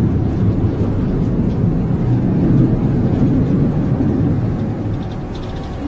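Low, steady rumble of a moving bus heard from inside the cabin, easing off a little near the end.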